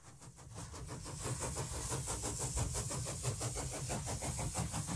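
Steam train sound effect: fast, even chugging at about seven beats a second with a steady hiss, fading in over the first second.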